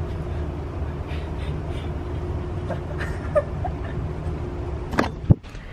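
A motor vehicle's engine running steadily with a low rumble and a faint constant hum, then two sharp knocks near the end.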